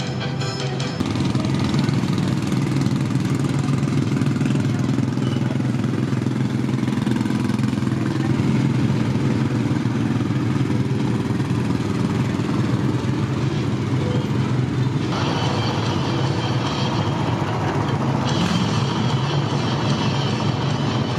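Steady low engine rumble. A higher, steady tone joins about fifteen seconds in.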